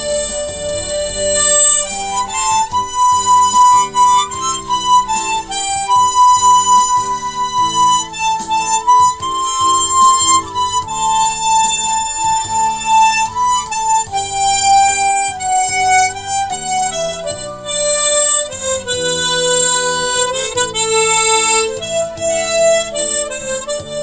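Harmonica in G playing a slow, stepwise melody of long held notes over a steady chordal accompaniment.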